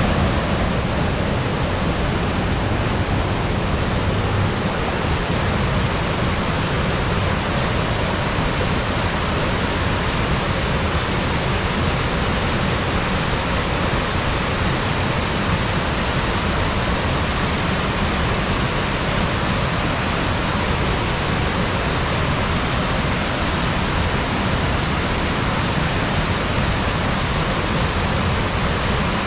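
Waterfall plunging into a rocky pool, with creek water rushing over stones: a steady, unbroken rush of water.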